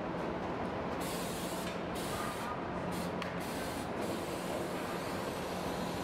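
Factory assembly-line noise: a steady machine hum, with compressed air hissing in several spurts from about one to four seconds in, from pneumatic tools at a transmission assembly station.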